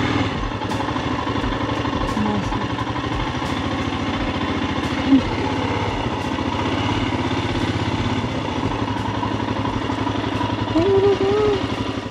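Royal Enfield Himalayan's 411 cc single-cylinder engine idling steadily with an even low thump.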